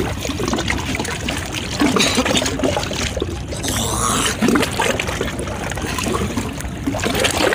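River waves lapping and splashing against the shore in a steady, noisy wash.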